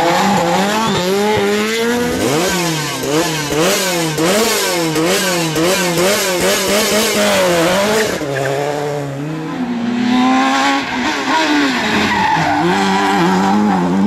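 Rally car engines worked hard in a string of short clips. The engine note climbs and drops sharply about twice a second for several seconds as the throttle is blipped and gears are changed, then turns steadier and rises again near the middle.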